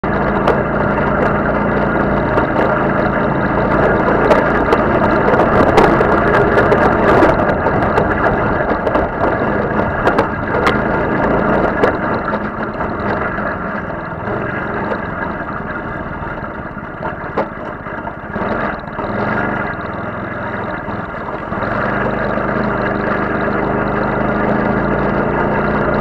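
Off-road buggy's engine running under way, heard from on board, with sharp knocks and rattles from the rough ground over roughly the first twelve seconds. The engine drops back in the middle and then runs steady and louder again near the end.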